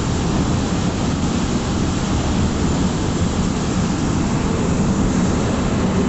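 Passenger train coaches rolling past along the platform: a steady, loud rumble of wheels on the rails.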